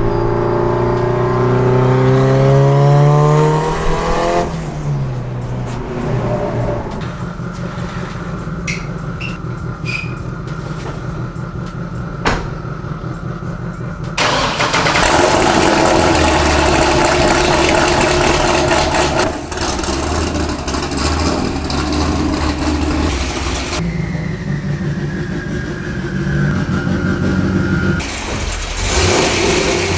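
Car engine accelerating, its pitch rising over the first few seconds, then several short stretches of engine running and revving that change abruptly from one to the next.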